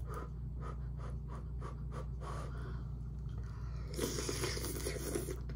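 Short puffs of breath blowing on a hot bite of instant noodles, then a long slurp of the noodles about four seconds in.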